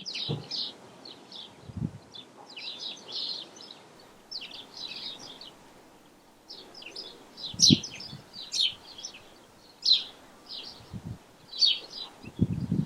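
Small birds singing, with repeated short chirping phrases throughout. A few soft low thuds come in between.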